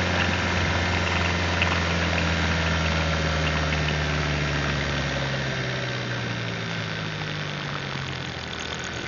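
2024 Hyundai Tucson NX4 Hybrid's 1.6-litre turbo four-cylinder petrol engine running with a rattle, which the owner says is still there under load after an inspection, though quieter. A deep drone fades out about halfway through.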